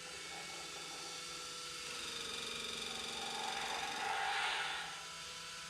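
Small electric motors in a remote-control Grogu (Baby Yoda) toy whirring as it performs its Force movement. The whir swells about two seconds in and eases off near the end.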